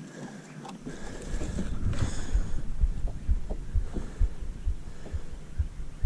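Irregular low thuds and light knocks, with a few sharper clicks: handling noise in a boat while a hand-held fish scale is readied to weigh a just-landed bass.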